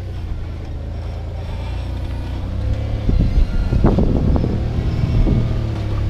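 Toyota off-road truck's engine running at low revs while rock crawling over boulders, getting louder about halfway through, with a few sharp knocks at the same time.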